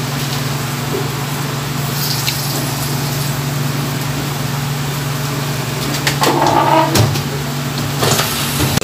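Pork belly sizzling on a grill pan over a portable tabletop stove: a steady frying hiss over a low hum. About six to seven seconds in come a few utensil clicks and a short sound.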